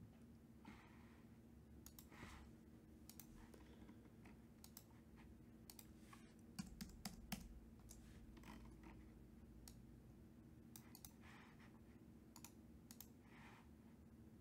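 Near silence: a faint steady hum with scattered faint clicks throughout, a few of them a little louder about halfway through.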